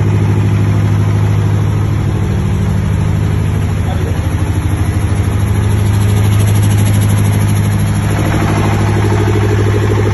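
30 kVA diesel generator set in a soundproof acoustic enclosure running steadily at constant speed, a deep even engine drone that grows somewhat brighter near the end.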